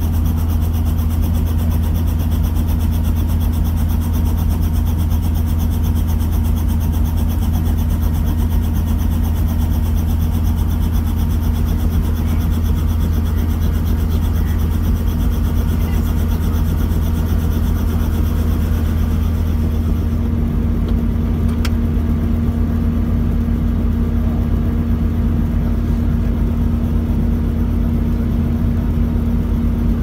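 Steady, loud low engine drone heard from inside a vehicle's cabin, with no change in pitch or level.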